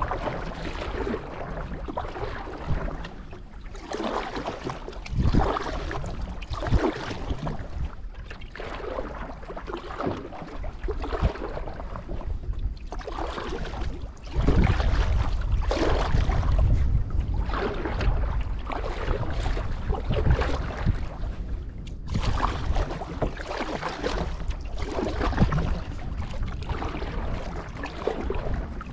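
Canoe paddle strokes in lake water, a stroke about every second and a half, with wind rumbling on the microphone.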